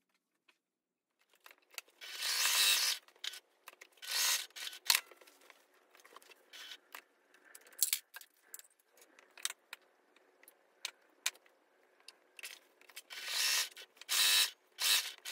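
Stiff cotton canvas rustling in several short bursts as it is handled and shifted, with scattered light clicks and small snips of thread scissors.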